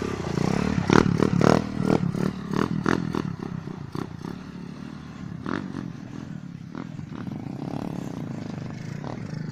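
Small trail motorcycle engine running with uneven throttle. A run of short, sharp noises comes in the first three seconds.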